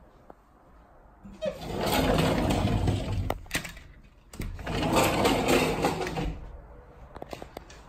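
Sliding door rolling along its track, rattling and rumbling, in two runs of about two seconds each with a short break between.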